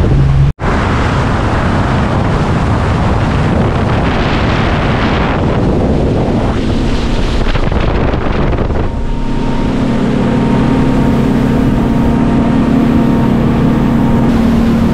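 Outboard-powered boat running at speed: wind buffeting the microphone and water rushing past the hull, after a momentary cut-out just after the start. From about nine seconds in, the steady drone of the 300-horsepower outboard motor comes through plainly.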